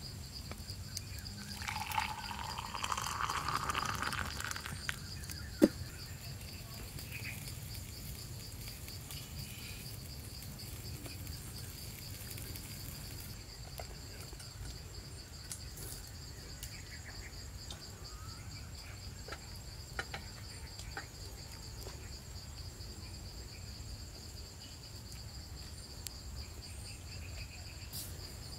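Insects trilling steadily in a high, finely pulsing tone, over a low rumble. A rustling, scraping noise from about two to five seconds in, then a single sharp snap, the loudest sound, with a few fainter clicks later.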